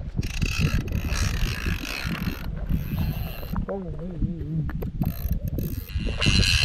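Fishing reel ratcheting in several bursts of one to two seconds, its line under load from a hooked barbel being brought to the bank.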